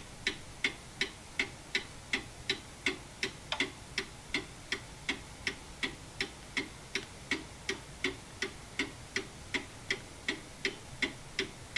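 Mechanical pendulum clock ticking steadily, a little under three evenly spaced ticks a second.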